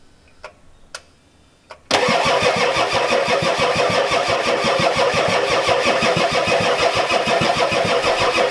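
Ford 7.3L IDI V8 diesel turning over on the starter motor with an even, rhythmic churn and not catching. It starts about two seconds in, after a few light clicks. The engine won't start, which the owner puts down to a weak injection pump not getting fuel to the new injectors.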